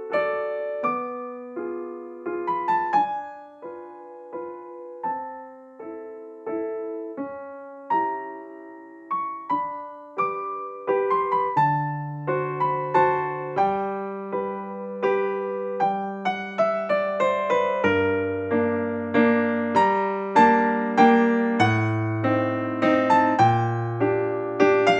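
Background piano music: a gentle melody of single struck notes, joined by lower chords about twelve seconds in.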